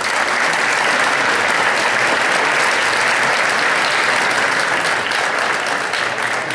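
Audience applauding: dense, steady clapping that swells up at the start and begins to fade near the end.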